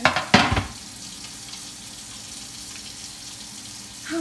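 Meatballs frying in a lidded skillet, a steady sizzle, after two sharp knocks in the first half second.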